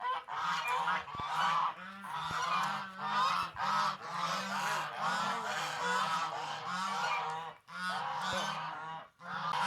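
A flock of poultry calling, many birds at once in dense, overlapping honking calls, with a couple of brief lulls near the end.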